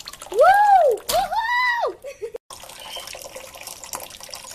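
A child whoops twice in high, rising-and-falling calls, then water runs and splashes steadily from about two and a half seconds in.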